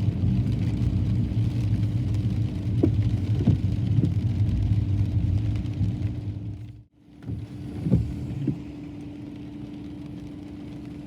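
A car running along the road: a steady low rumble of engine and road noise with a steady hum. It cuts out briefly about seven seconds in and comes back quieter.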